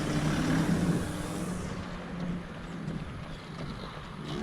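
A motor vehicle passing on the road, its engine hum loudest in the first second and fading away after about two and a half seconds, over steady wind noise on the microphone.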